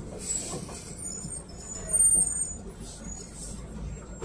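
Cabin noise inside a PAZ-32054 bus with its ZMZ-5234 V8 engine running: a steady low rumble with light rattles and thin high squeaks from the body. About two seconds in there is a brief louder noise with a high squeal.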